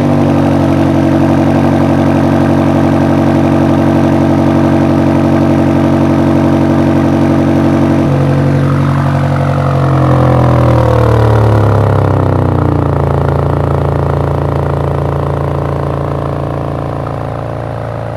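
2023 BMW XM's 4.4-litre twin-turbo V8 running at idle at the exhaust tips. It holds a steady, higher idle, then about eight seconds in the pitch drops and wavers for a few seconds before settling to a steady, lower idle.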